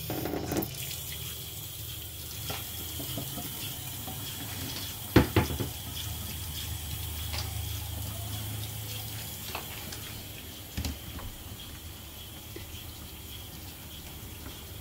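Kitchen faucet running a thin stream of water into a stainless steel sink, a steady splashing hiss. A sharp double knock comes about five seconds in, and a smaller one near eleven seconds.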